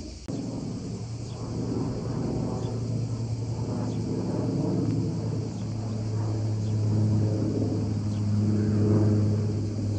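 Firefighting propeller aircraft flying low overhead: a steady engine drone with a deep hum that cuts in abruptly just after the start and grows louder, loudest near the end.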